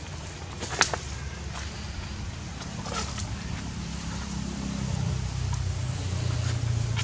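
A motor vehicle engine running, a low hum that slides down in pitch and grows louder through the second half, with a few sharp clicks over it.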